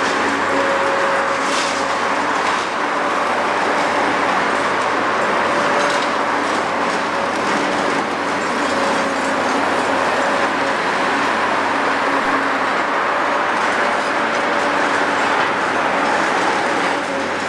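Caterpillar 385B long-front demolition excavator working under load: its 3456 diesel engine and hydraulics run steadily with a constant whine. The demolition jaws crunch through concrete, and broken concrete falls.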